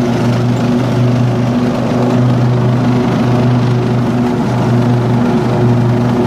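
Ride-on lawn mower's engine running steadily under load while it cuts grass, a constant low hum with a broad whirr over it, heard from the driver's seat.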